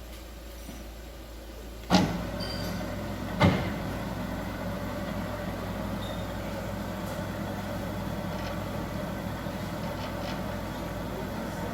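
Two sharp knocks about a second and a half apart, then a steady mechanical hum.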